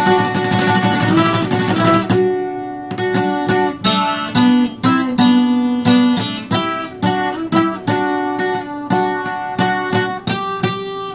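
Docerola (twelve-string acoustic guitar) played solo: it comes in suddenly with a strummed chord, then runs on with quick picked notes and chords, several a second.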